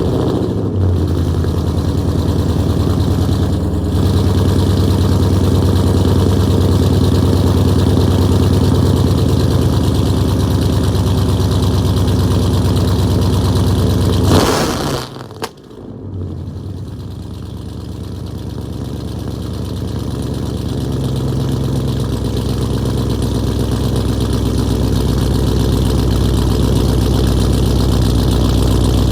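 2020 Dodge Scat Pack's 392 HEMI V8 with aftermarket headers starting cold and idling steadily. About halfway through it starts again, warm, and settles into an idle that slowly grows louder.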